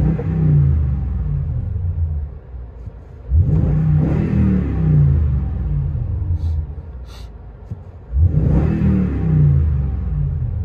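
Toyota Tundra 5.7-litre V8 through an 11-inch MagnaFlow dual-in dual-out muffler on 3-inch pipe, heard from inside the cab: three hard pulls on the throttle, about four seconds apart, each a deep rumbling exhaust note that holds for a few seconds and then drops back.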